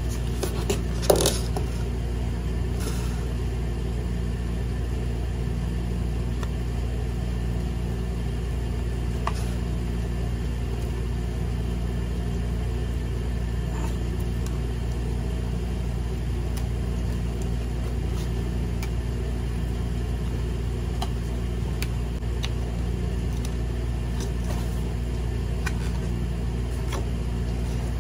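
Steady low background hum, with a sharp click about a second in and a few faint taps as foam board pieces are handled and pressed together.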